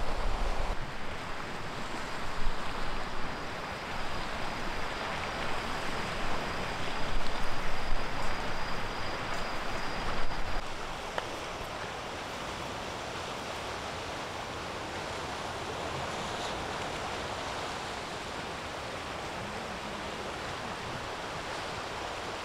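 Sea surf washing on the shore with wind gusting on the microphone. After about ten seconds the gusts drop away and a steadier, quieter wash remains.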